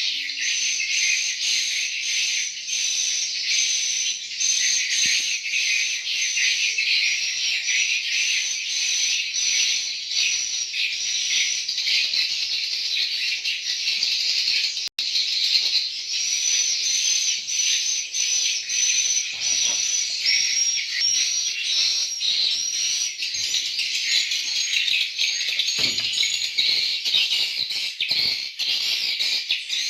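Dense, continuous high-pitched twittering and chirping of many swiftlets, with a brief break near the middle.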